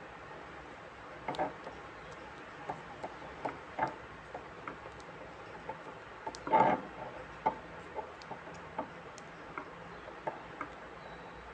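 Black electrical tape being wrapped by hand around a wire joint: scattered light clicks and crinkles of the tape and fingers, with one louder crackle about six and a half seconds in.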